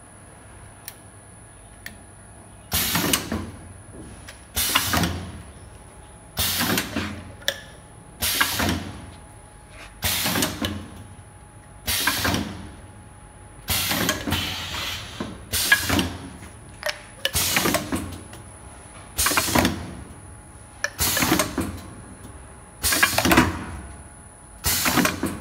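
Semi-automatic tube filling and sealing machine running its cycle. From about three seconds in, a loud sudden burst that tails off into hiss repeats about every two seconds as the air-driven stations work each tube.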